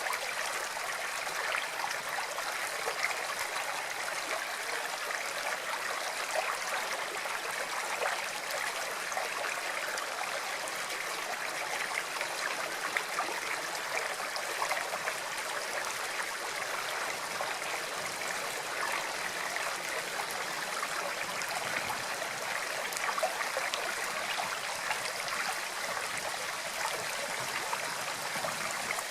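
Water flowing steadily, a stream trickling and gurgling.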